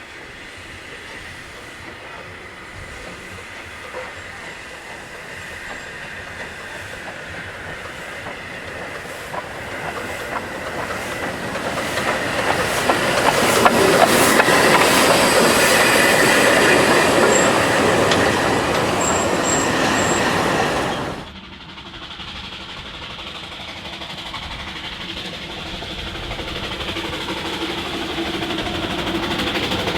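009-scale narrow-gauge model train running along the track with a clickety-clack, getting louder as it nears. About two-thirds of the way through the sound drops suddenly, then builds again as a train approaches.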